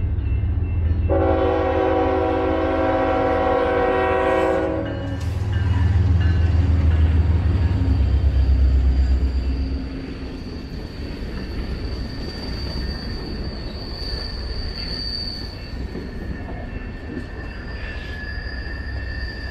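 A BNSF diesel freight train sounds its air horn in one long blast about a second in, then its lead locomotives rumble past loudly. After about ten seconds the freight cars roll by more quietly, with a thin, steady high-pitched wheel squeal.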